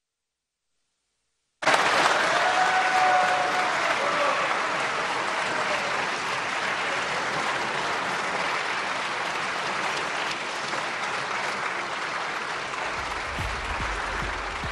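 Silence, then applause from a chamber full of lawmakers starts suddenly about a second and a half in and keeps going steadily.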